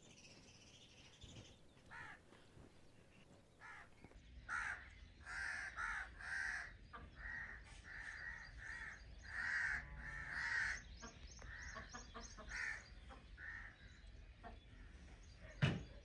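A crow cawing over and over, a long series of calls starting about four seconds in and thinning out, followed by a single knock near the end.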